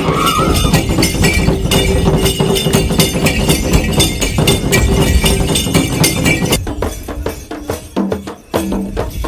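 Traditional dance music on percussion instruments: a fast, dense beat with jingling high strikes. About two-thirds of the way in it thins to sparser, separate strikes.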